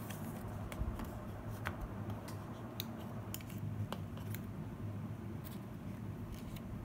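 Hands unpacking a new iPhone SE: a dozen or so short, light clicks and ticks as the paper insert is lifted away and the phone is slid out of its cardboard tray, over a steady low hum.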